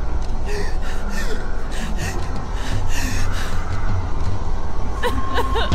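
A terrified woman sobbing in quick, repeated gasping breaths over a steady low rumble. Near the end a wavering, higher-pitched voice cuts in.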